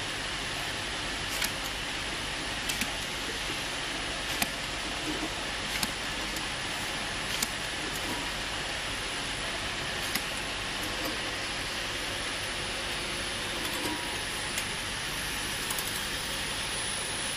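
Automatic bottle labeling machine running: a steady mechanical hum and hiss, broken by sharp clicks every second or few.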